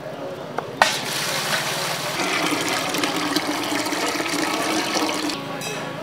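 Drinking water poured from a red plastic pot into a large stainless steel vessel, a steady splashing rush that starts suddenly about a second in and stops shortly before the end.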